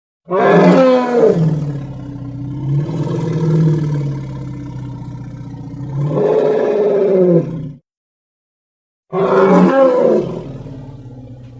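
Deep monster roar sound effects: a long roar starting just after the beginning that swells again about six seconds in, then a pause of about a second and a second roar that fades away.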